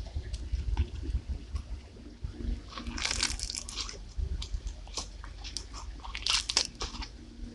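Foam-bead slime (floam) being squeezed and pressed by hand, its tiny foam beads making crunchy crackling and popping. Scattered clicks, with two denser bursts of crackling about three seconds and six seconds in.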